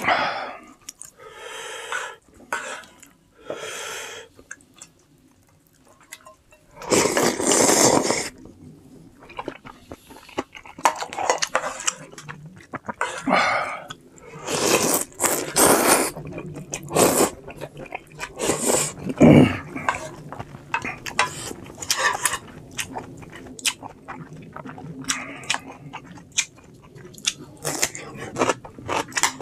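Close-up eating sounds of a person chewing and crunching through instant ramen and radish kimchi. Irregular bites and mouth noises run throughout, with a few louder bursts, the biggest about seven seconds in.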